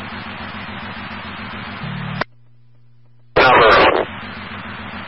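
Police scanner radio: the open-channel hiss of a two-way radio transmission, with a low buzz just before it cuts off sharply about two seconds in. After a moment of faint hum, a brief spoken word ('Number') opens the channel again and the hiss returns.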